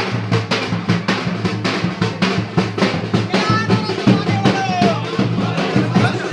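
Dhol-tasha drumming: a fast, steady beat of dense drum strokes over a held low tone.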